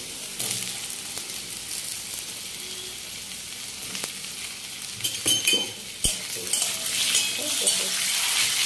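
Potato sticks sizzling steadily in hot oil in a wok, with a metal spatula scraping and clinking against the pan as they are stirred in the second half.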